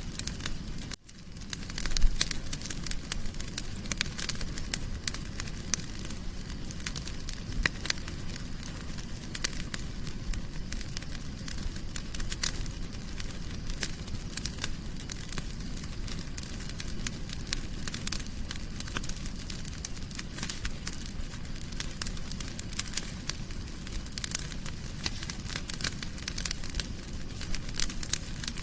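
Wood fire crackling in a fireplace: a steady low rustle with dense, irregular sharp pops and snaps. The sound briefly drops out about a second in, then a loud pop follows just after.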